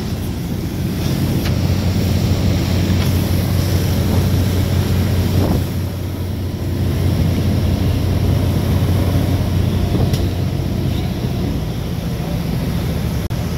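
A longliner fishing boat's diesel engine running steadily under way, a constant low drone, with sea water rushing past the hull and wind buffeting the microphone.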